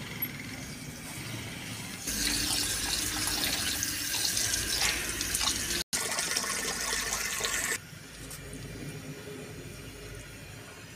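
Tap water running into a wide steel tray of rice being washed, starting about two seconds in and stopping about eight seconds in; the water is quieter before and after.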